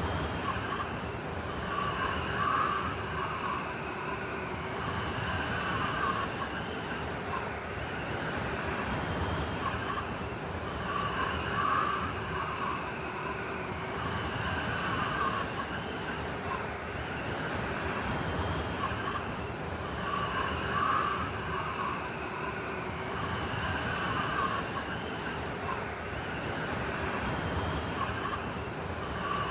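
Blizzard wind: a steady rush with howling, whistling gusts that swell and fade about every nine seconds.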